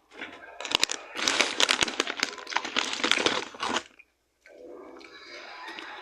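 Crunchy popped-corn chips (PopCorners kettle corn) being chewed close to the mic: a dense run of crackling crunches lasting about four seconds that stops suddenly.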